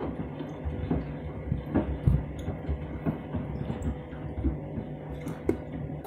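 Candy front-loading washing machine tumbling a load of shoes in sudsy water on a delicates wash: the motor hums steadily while water sloshes and the shoes thud irregularly against the drum.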